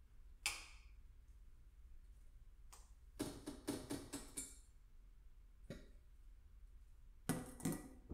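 Objects knocking and clattering as someone rummages low in a kitchen cabinet: one sharp knock about half a second in, a rattling run of clicks in the middle, a single knock, and a second short clatter near the end, over a low steady hum.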